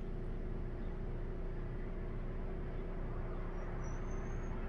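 A steady low mechanical hum, as of a running motor, with a faint, thin high whistle for under a second near the end.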